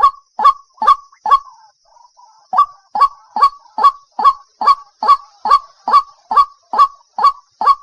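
Water hen calling: a fast, regular series of short, sharp, harsh notes, a little over two a second. After the first few notes there is a pause of about a second before the series starts again.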